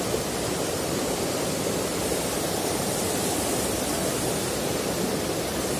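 Shallow mountain river rushing over rocks in small rapids: a steady, even rush of water.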